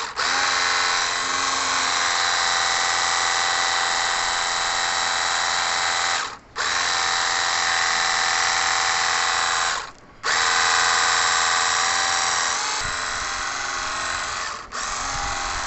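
Cordless battery pressure washer running with a steady motorised whine over the hiss of its water jet on concrete. It cuts out for a moment twice mid-way and dips once more near the end.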